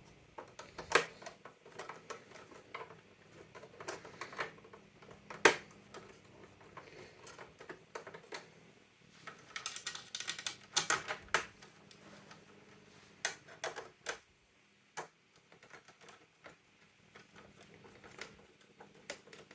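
Irregular clicks and taps of a screwdriver and small screws against an old telephone's plastic housing as the screws are driven back in, with a quick run of clicks about ten seconds in.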